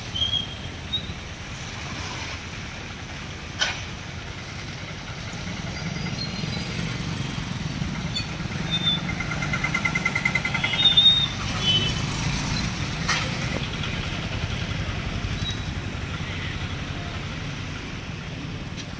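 A motor vehicle's engine runs, with the low rumble swelling partway through as it passes. A sharp knock comes a few seconds in, and brief high chirps are scattered through.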